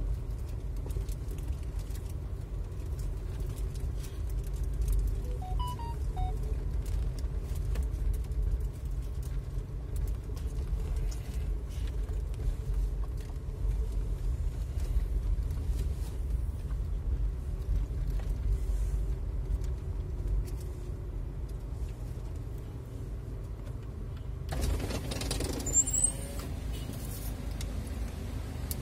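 Low, steady rumble of a vehicle driving slowly. About 25 seconds in, a rush of wider noise lasts a second or two.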